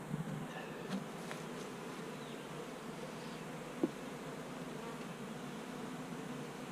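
Honey bees buzzing at an open hive in a steady hum, from a queenless colony that is nervous and building emergency queen cells. A few light clicks early on and one sharp click about four seconds in.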